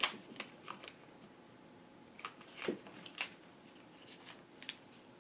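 Plastic art markers being handled and sorted, clicking and knocking lightly against each other and their plastic holders: scattered light clicks.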